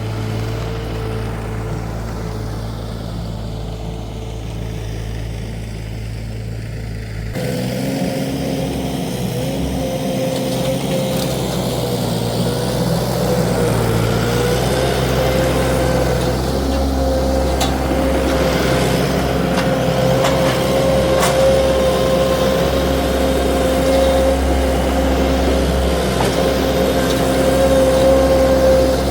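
Wacker Neuson SM120 mini skid steer's engine running at a steady speed while the machine works. About seven seconds in the sound changes abruptly and runs louder from then on, with a few faint knocks later.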